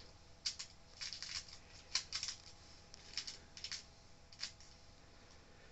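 Light, irregular clicks and scrapes of small hand-held parts being handled and fitted on a work mat, about a dozen faint ticks spread out unevenly.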